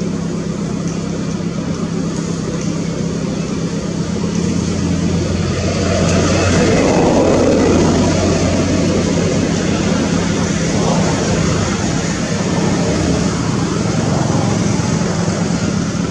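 A motor vehicle's engine running with a steady low hum, growing louder for a few seconds around the middle and then easing back.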